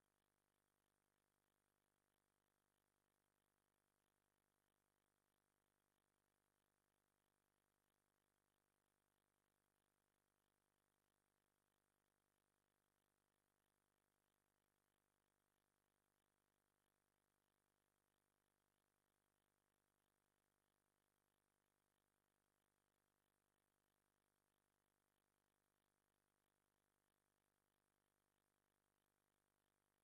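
Near silence: nothing but a faint, steady, unchanging noise floor.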